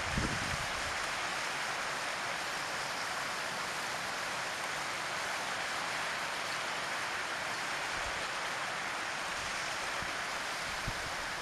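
Steady rushing of running water, as from a hill stream, with brief low gusts of wind on the microphone at the start and near the end.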